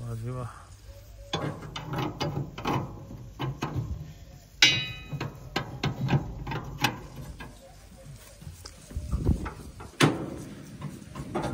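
Spanner and steel parts clicking and knocking as bolts are worked on a combine harvester's thresher, with a loud ringing metal clank about four and a half seconds in and a sharp knock near the end.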